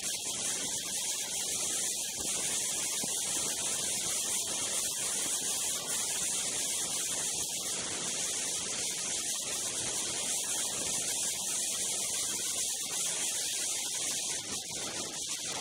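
Steady rushing hiss of wind on the helmet camera's microphone while riding a snowmobile at speed, with the sled's running noise blended in underneath.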